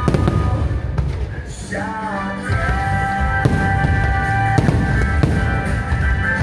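Aerial firework shells bursting in a string of sharp bangs, over music playing throughout with a long held melody note in the middle.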